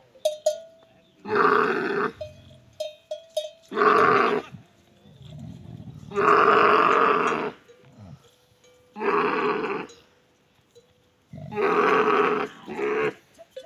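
Dromedary camels calling while mating: six loud calls, each about a second long, with short quiet gaps between, the third one the longest.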